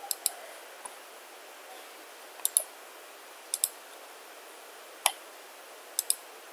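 Computer mouse button clicks: five short sharp clicks or quick double clicks, spaced about a second apart.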